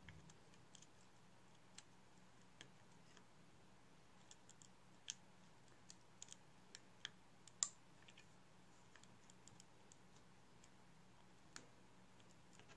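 Faint, scattered small clicks and taps from fingers working at the display flex-cable connectors of an opened iPhone 6s, pressing the cables onto their sockets and setting the metal connector bracket over them. About a dozen irregular clicks, the sharpest a little past halfway.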